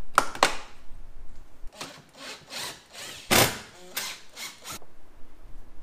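Plastic door-handle trim cover on a BMW E90 rear door card being pried and worked loose: a series of plastic scrapes and rubs, the loudest about three and a half seconds in, then a few quick clicks.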